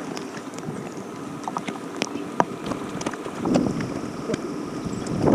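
Wind buffeting the microphone, with scattered light ticks of rain striking close by and a louder gust near the end.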